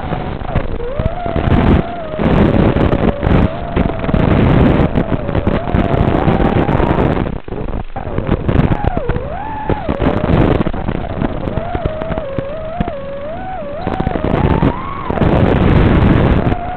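Small FPV racing quadcopter's motors whining, the pitch rising and falling continually with the throttle, over rushing, gusty noise that swells and drops as it flies.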